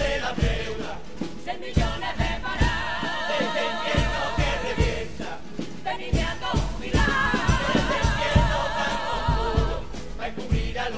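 Carnival comparsa performing: a choir of voices singing in harmony, holding long wavering notes, over Spanish guitars and a steady drum beat.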